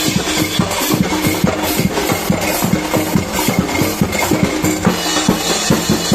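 A drumbeater percussion group playing a fast, steady beat on bass drums and snare drums.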